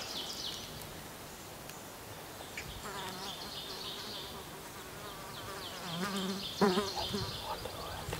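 Wild turkey gobbling, a rapid warbling rattle at about three seconds and again louder and closer near the end, over a steady high-pitched buzz.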